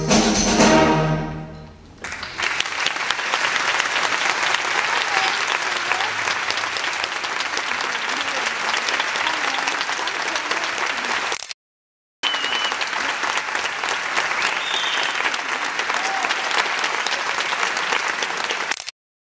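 A middle-school concert band holding its final chord, which dies away in the first two seconds, followed by steady audience applause that breaks off twice for a moment.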